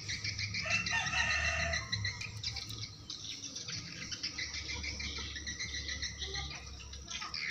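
Steady chirping of insects and birds, with a brief burst of louder calls about a second in.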